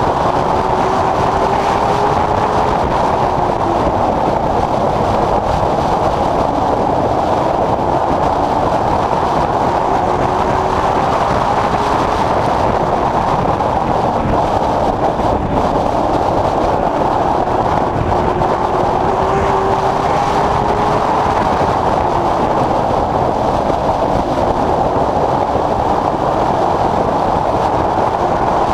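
Late Model Stock race car's V8 engine at racing speed, heard from inside the car over loud road and wind noise. Its pitch climbs on each straight and drops off into the turns, about every eight or nine seconds.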